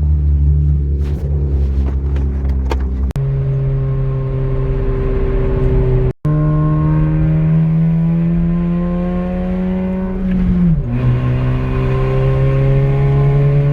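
Honda K24Z3 2.4-litre four-cylinder engine in a 2011 Accord coupe pulling under acceleration, with an exhaust leak. Its pitch climbs slowly and steadily, falls sharply a little under eleven seconds in, as at a gear change, then climbs again. The sound cuts out briefly twice, at about three and six seconds in.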